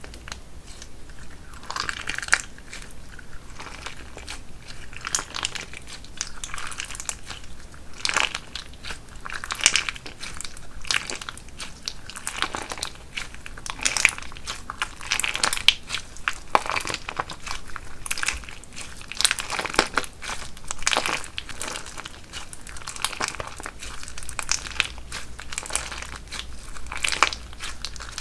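Crunch slime being kneaded and squeezed by hand, giving a dense run of irregular crisp crackles and clicks.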